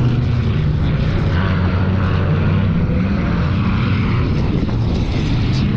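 Loud, steady drone of engines running, with no break.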